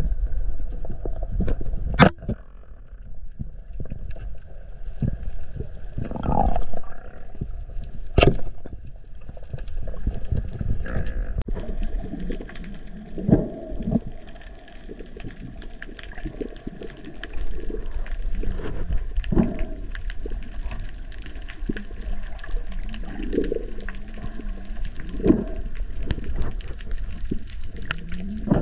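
Water gurgling and sloshing in an uneven run, with two sharp clicks about two and eight seconds in.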